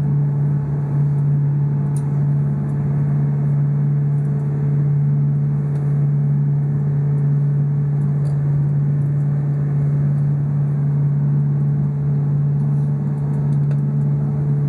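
Undersea observation boat's engine running with a steady low drone, heard inside the hull's underwater viewing cabin; the hum holds one even pitch without change.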